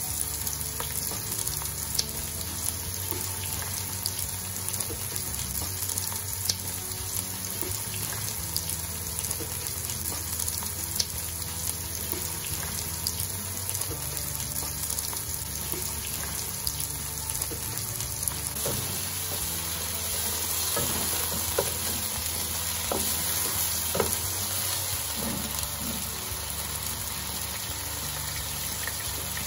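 Sliced onion sizzling as it fries in hot oil in a non-stick pot, with scattered light knocks of a wooden spatula stirring it. About two-thirds of the way in the sizzling grows a little louder, and by the end chicken pieces are frying with the onion.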